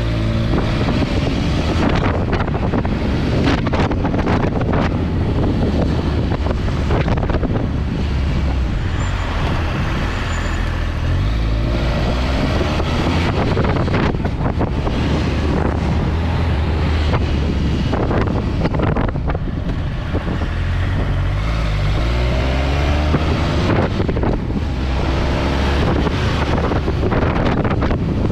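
Triumph Tiger 1200 XCA motorcycle's three-cylinder engine running under way, its pitch rising and falling with throttle and gear changes, with wind noise on the microphone.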